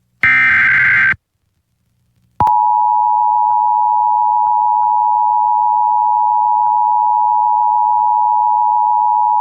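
Emergency Alert System broadcast: the last SAME header data burst, a short, loud digital screech under a second long, then about a second of silence, then the steady two-tone EAS attention signal starting about two seconds in and holding. The burst carries the alert's header, and the tone announces the flash flood warning that follows.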